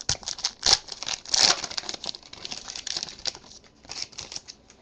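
A trading-card pack's foil wrapper being torn open and crinkled by hand: a dense run of crinkling and tearing, loudest about a second in, easing off towards the end as the cards are handled.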